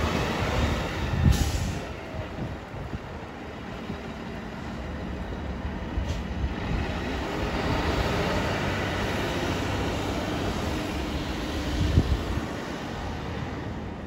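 Transit bus running past with steady engine and road noise. A sharp thump comes about a second in and another near the end.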